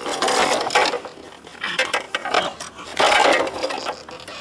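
Metal clanking and clattering in three loud bursts about a second apart.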